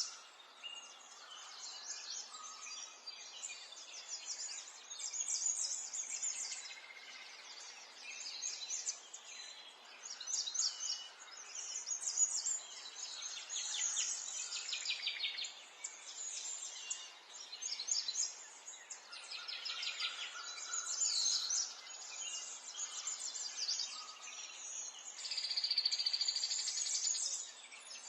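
Many small songbirds chirping and twittering over one another in a continuous chorus of short, high calls and trills, over a faint steady background hiss.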